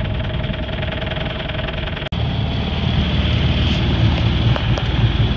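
Sailboat's inboard engine idling with a steady low rumble. It drops out for an instant about two seconds in and comes back louder.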